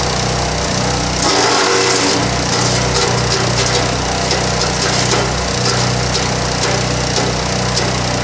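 Hecht 6208 petrol wood chipper running and shredding branches: a steady engine note under dense crunching and splintering. About a second in there is a louder, harsher stretch as the engine takes the load of a branch.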